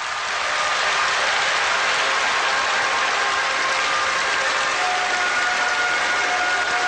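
A large stadium crowd applauding and cheering in a dense, steady wash. About five seconds in, a few faint steady tones come in under it.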